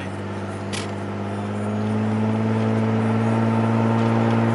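Car engine heard from inside the cabin, a steady drone that grows louder over the first two seconds and creeps slightly up in pitch as the car gathers speed.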